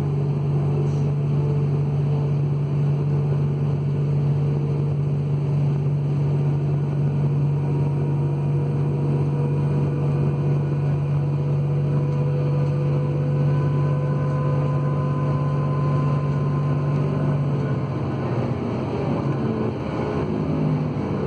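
A class 644 Talent diesel-electric multiple unit heard from inside the passenger car as it accelerates away from a station: a steady, loud low diesel drone with a fainter whine climbing slowly in pitch as the train gathers speed. A little before the end the low engine note drops away and turns rougher.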